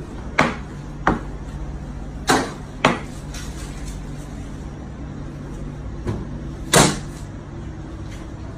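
Large kitchen knife chopping through meat onto a plastic cutting board: six sharp knocks at uneven intervals over a steady low hum.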